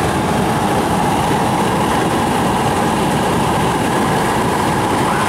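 Steady rush of wind and road noise coming in through an open side window of a moving car, heard from inside the cabin.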